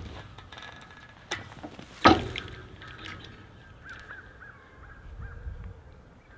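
A sharp metallic knock about two seconds in, with a smaller one just before it, as the woven wire fence and its stretcher bar are handled. Then a quick run of crow caws, about half a dozen, around the middle.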